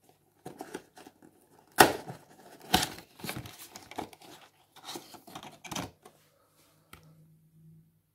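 Small paperboard box being opened by hand: irregular scraping, rustling and sharp paper snaps as the flaps are pulled open, loudest about two and three seconds in, then fainter handling of the card inside.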